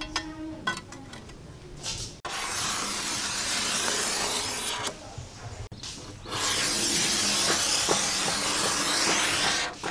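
Spraying hiss in two long bursts of about three seconds each, starting a couple of seconds in, with a short pause between them.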